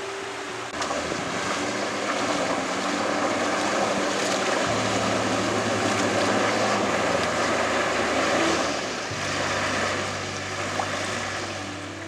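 Pickup truck driving through a shallow stream: its engine running under a steady rush of splashing water.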